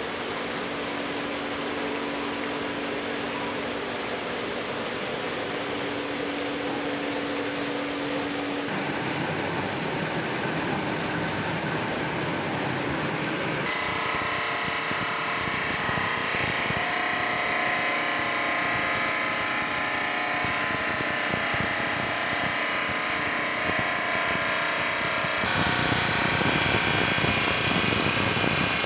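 Water-cooled diamond circular saw of a granite cutting machine, driven by an electric motor, running through a granite slab: a steady grinding hiss, with cooling water splashing. The sound jumps abruptly louder about fourteen seconds in.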